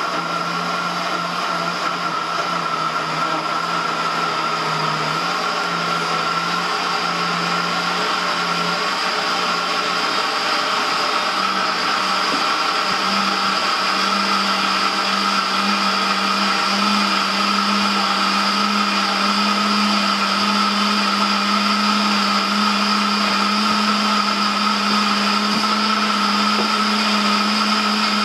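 Instant Ace countertop blender running on medium speed, blending a banana smoothie. Its steady motor hum climbs a little in pitch and gets slightly louder about ten to thirteen seconds in, then holds.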